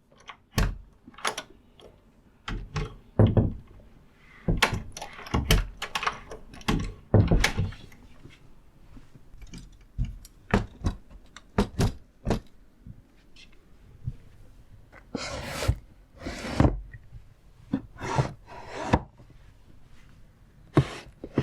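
Doors and drawers being opened and shut: a quick run of latch clicks, knocks and thuds, with two longer scraping slides about fifteen and sixteen seconds in.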